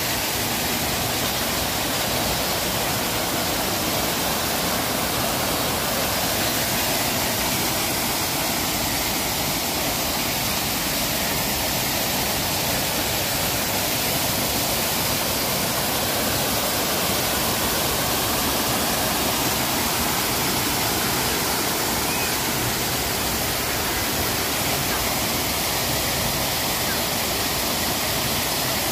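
Man-made garden waterfall: water cascading over a rock wall into a shallow pool, with a steady, unbroken rush.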